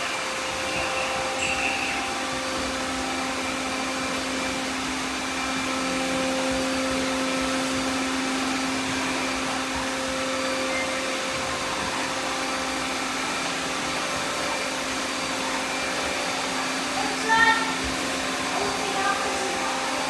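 Many robot vacuum cleaners running at once: a steady, even whirring hum. About seventeen seconds in, a brief louder pitched sound cuts in over it.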